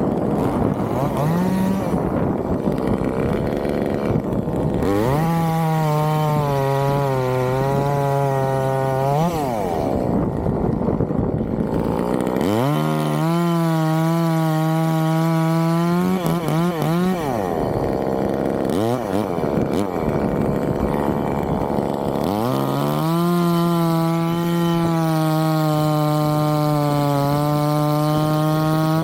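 Chainsaw engine revving up to full throttle and holding there for several seconds, three times, falling back to a rough low-throttle run in between, as it is used to cut a coconut palm trunk.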